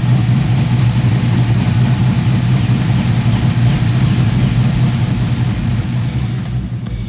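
LQ4-based LS V8 in a 1960s Chevy C10 pickup running at a steady low speed, with an even, unchanging engine note that fades somewhat near the end.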